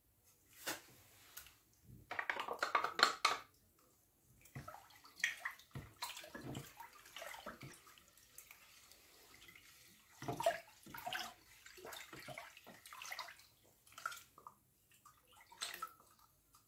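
Liquid sloshing and splashing in a plastic bowl as a wooden spoon stirs lemon juice, with irregular light knocks and scrapes of the spoon and a plastic yogurt pot against the bowl.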